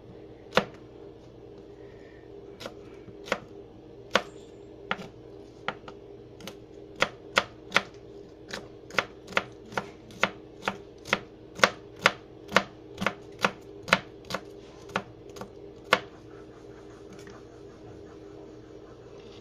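Chef's knife chopping a jalapeño pepper on a plastic cutting board: sharp knife strikes, scattered at first, then quickening to a steady two or three a second before stopping a few seconds before the end. A steady low hum runs underneath.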